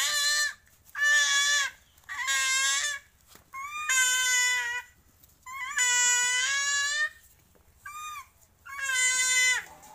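An animal calling over and over: about seven drawn-out, high calls, some short and some more than a second long.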